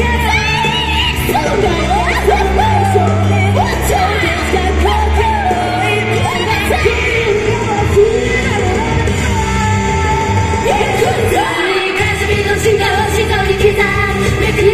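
Upbeat Japanese idol pop song performed live: several women singing into microphones over a loud backing track with a steady beat, with shouts and whoops mixed in.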